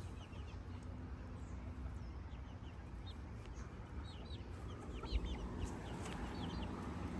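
Backyard chickens clucking quietly, with many short, high chirps that grow more frequent after the first couple of seconds.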